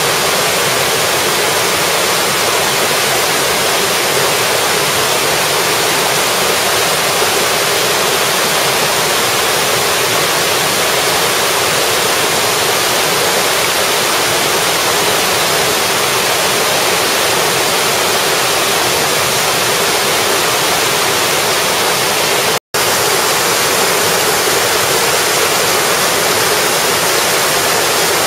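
Multi-tiered cascade waterfall, many small falls of water striking rocks in a steady, dense rush. The sound drops out for an instant about two-thirds of the way through.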